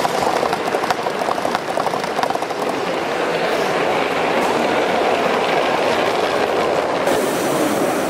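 Gauge 1 model train running past on the track, its wheels clicking over the rail joints, with most of the clicks in the first few seconds over a steady background noise.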